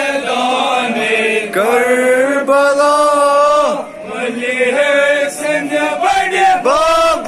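Men's voices chanting a noha, a Muharram lament for the martyrs of Karbala, in long held phrases that bend in pitch, broken by short pauses.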